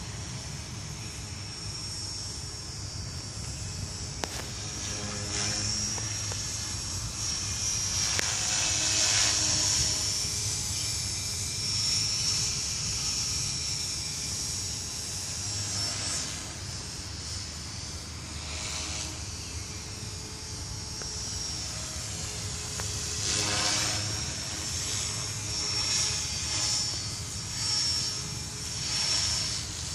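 Electric Align T-Rex 450 Pro flybar RC helicopter in flight: a steady high-pitched whine from its brushless motor, gears and rotor, held at one pitch by the governed head speed. It swells louder and fades several times as the helicopter flies nearer and farther.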